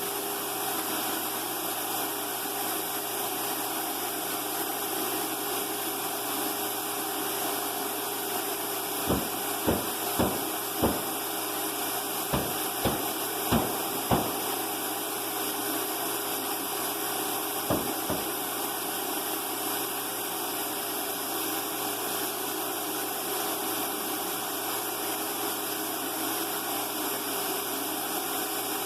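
Steady whirring hiss of a motor-driven blower, such as the turbine of a spray rig or a ventilation fan used in tub refinishing. About seven sharp taps come in quick succession around the middle, with two more shortly after.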